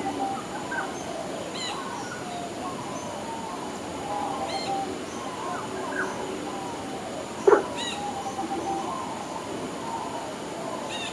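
Several birds calling in the background: short high chirps every few seconds and lower warbling calls. One loud short sound comes about seven and a half seconds in.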